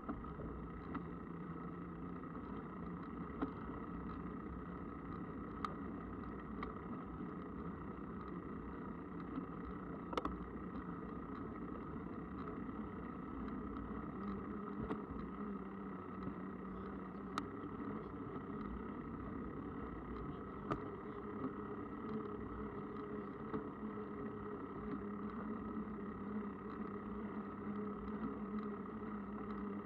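Mountain bike riding along a path: a steady rumble of tyres and wind, with scattered sharp clicks and knocks from bumps.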